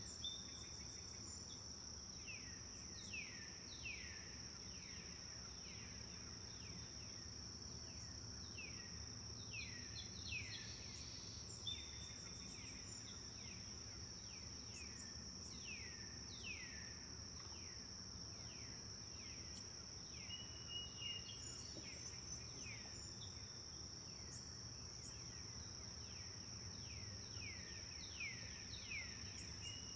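Forest birds calling in series of quick falling chirps, with a few short level whistles, over a continuous high-pitched insect trill and a low steady rumble.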